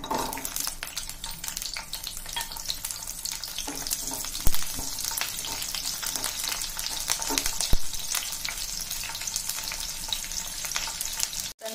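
Whole small onions sizzling and crackling in hot oil in a stainless steel kadai as they are stirred. Two sharp knocks stand out, about four and a half and nearly eight seconds in.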